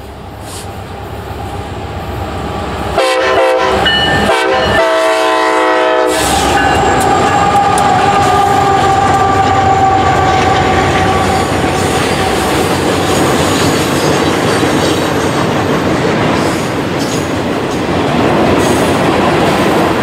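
Diesel freight locomotive's horn sounding a few short blasts about three seconds in, ending in a longer one, as the train comes closer. The locomotives and a long string of container and hopper cars then roll past, wheels clacking over the rail joints.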